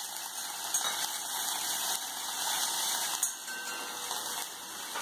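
Fresh curry leaves sizzling in hot oil in a stainless steel kadhai with mustard seeds, cumin and green chilli: a steady hiss with a couple of sharp pops.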